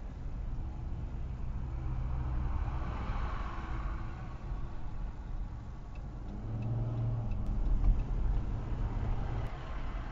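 Traffic noise heard from inside a car's cabin: a steady engine and road rumble that swells about two to four seconds in and again around eight seconds.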